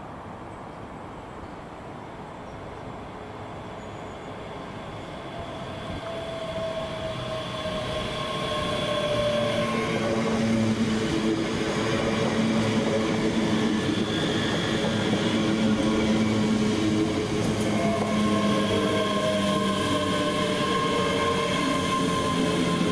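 Six-carriage passenger train pulling into the platform, growing steadily louder over about ten seconds as it approaches, then running on at a steady level. A falling whine partway through marks it slowing as it brakes.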